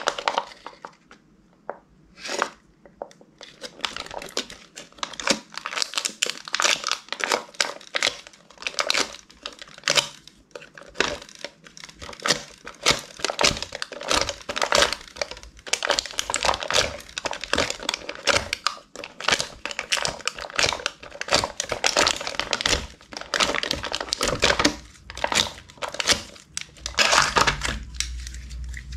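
Slime being kneaded and pressed by hand, giving a dense, irregular run of small clicks, pops and crackles.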